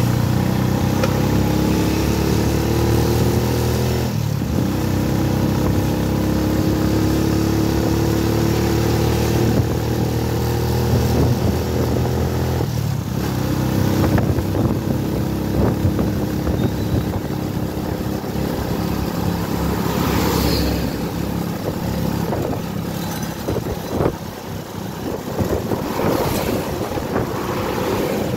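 Engine and road noise from a moving road vehicle, the engine's pitch slowly rising and falling with speed, with other traffic going by.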